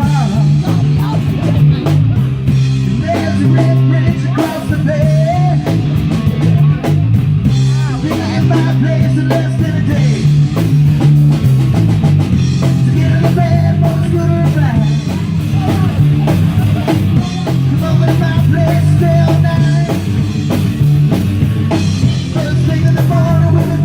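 Rock music with a drum kit, electric guitar and a singing voice, playing continuously.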